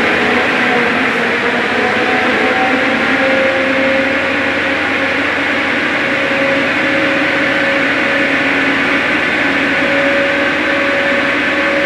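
Scania R580 XT truck's V8 diesel engine running steadily on a chassis dynamometer during a power test, a steady whine over the engine note.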